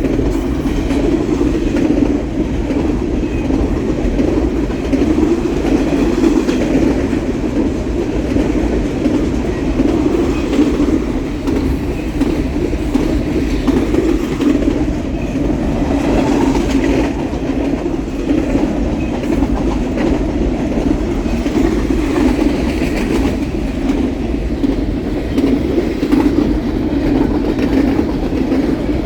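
A train's cars rolling steadily past at speed, a continuous loud rumble and rattle of wheels on rail.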